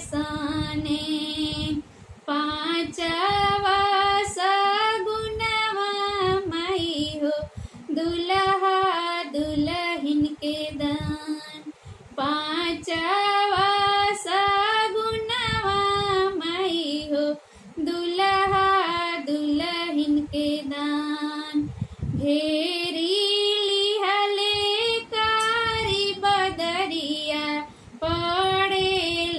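A woman singing a traditional Hindi-belt wedding song (shagun geet) solo, with no instruments, in long drawn-out melodic phrases broken by short pauses for breath.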